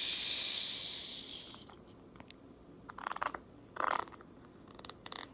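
Slime being pressed and poked with fingertips in a plastic tub, giving short crackly, popping squishes three times. A soft hiss, the loudest sound, fades away over the first second and a half.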